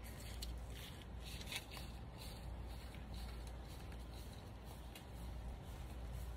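Steady low rumble of wind on the microphone, with scattered soft rustles, most of them in the first couple of seconds.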